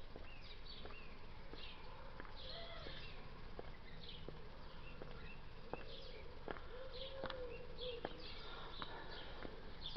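High-heeled shoes clicking on a paved pavement in a walking rhythm as the wearer approaches and passes, with small birds chirping throughout.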